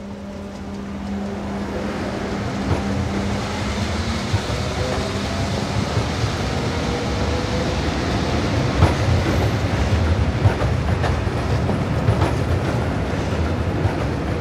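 A train running along the tracks, a steady rumble that builds over the first couple of seconds, with wheels clicking over rail joints now and then and a faint rising whine midway.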